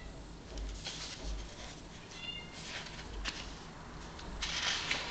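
Paper picture book being handled and turned, giving a few short rustles, the loudest near the end. A couple of faint, short high-pitched squeaks come about two seconds in.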